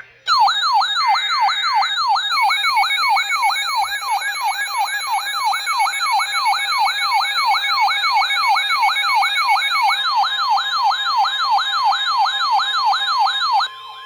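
Electronic alert siren of an emergency weather alert, sounding as a fast, repeating rising-and-falling wail about two and a half times a second with fainter steady tones under it. It cuts off abruptly near the end, signalling an incoming severe thunderstorm warning.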